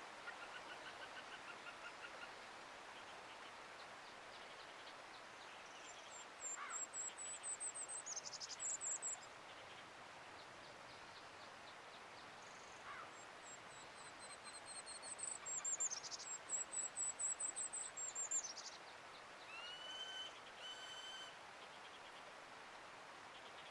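Several wild songbirds singing over a steady soft hiss of forest ambience: a quick run of a dozen repeated chirps at the start, two high, fast trilled songs that each end in a falling sweep (the loudest sounds), and two short whistled notes near the end.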